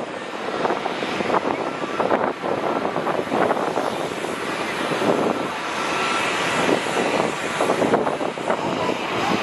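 Jet engines of a Starlux Airbus A350 at takeoff power as it climbs out, a steady, crackling jet noise.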